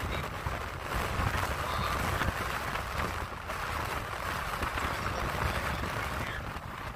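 Strong storm wind buffeting the microphone in a gusting low rumble, over a steady rush of surf breaking on the beach.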